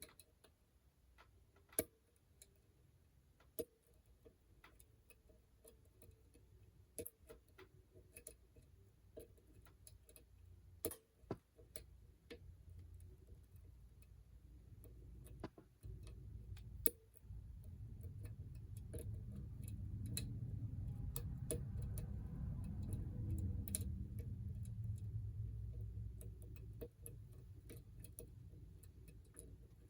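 Faint, irregular clicks of a hook pick working the pins inside an ASSA 700 lock cylinder. A low rumble rises in the second half and fades before the end.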